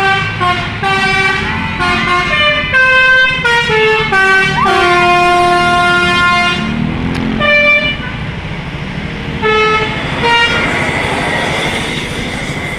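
Indonesian tour bus telolet horn, a multi-tone musical horn module, playing a quick tune of stepped notes for about seven seconds, then two short separate blasts. Bus engine and traffic noise run underneath and are left alone near the end.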